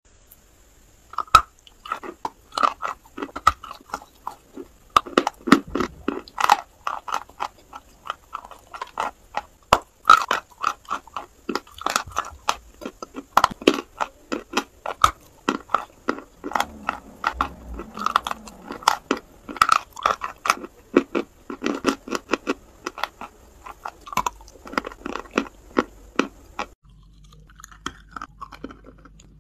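Close-miked biting and chewing of a lump of Novy Oskol chalk: a dense run of sharp crunches, several a second, with loud bites standing out. About 27 seconds in it gives way to a few much softer chewing sounds.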